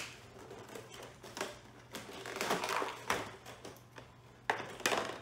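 Clear plastic blister tray crackling and clicking as it is handled and pried apart, in an irregular string of sharp clicks with a few louder cracks.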